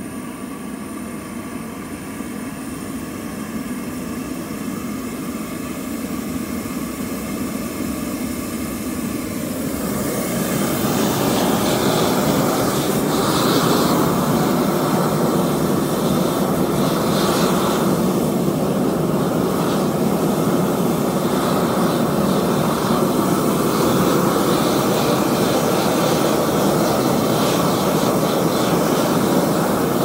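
Gas burners of a melting furnace running, a steady rushing noise that grows louder over the first ten seconds or so while the regulator is turned up, then holds steady.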